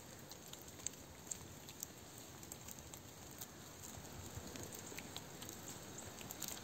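Faint steady hiss of ambient noise with scattered small clicks and crackles.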